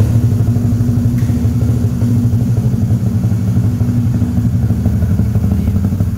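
Honda Pop motorcycle's single-cylinder four-stroke engine idling steadily through an aftermarket muffler, freshly started and not yet warm, on a newly fitted Caflex spark plug cable.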